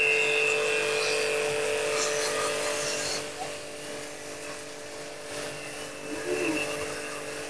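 Aimex DT-6502 pressure washer running, its motor humming steadily under the hiss of the water jet rinsing a motorcycle. The sound gets quieter about three seconds in while the hum carries on.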